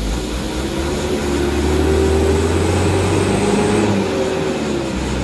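Mitsubishi Fuso dump truck's diesel engine revving hard under load while bogged in deep mud, trying to drive out. The revs climb over the first couple of seconds, hold, ease off a little near the end and build again.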